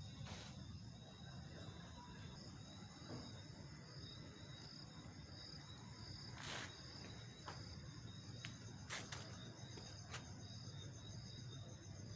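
Crickets chirping steadily and faintly, over a low hum, with a few sharp clicks and knocks scattered through.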